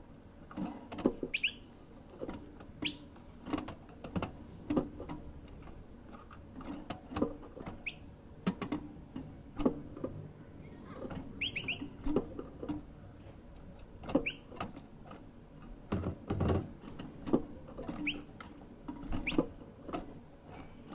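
Caged European goldfinch moving about its cage, making irregular taps and knocks on the perches and bars, and giving several short, rising chirps.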